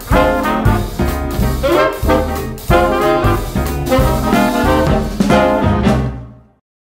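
Upbeat jazzy swing background music led by brass, with a steady beat, fading out to silence near the end.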